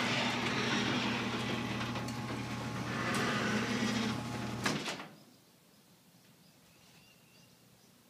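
Chamberlain garage door opener running as the sectional door rolls up: a steady motor hum with the noise of the moving door. It stops with a sharp clunk about four and a half seconds in, as the door reaches the fully open position.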